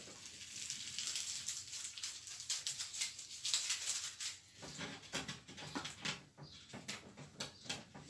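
Masking tape being peeled off a painting and its board, a crackly tearing rasp in several pulls, densest in the first half.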